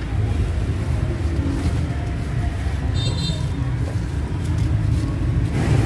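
Steady low rumble of street traffic, with a brief high beep about three seconds in.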